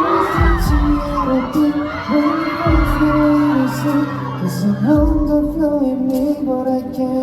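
Live band music played loud through a venue's sound system, with long held notes and a deep bass hit about every two and a half seconds. Audience screams carry over the first couple of seconds, then fade.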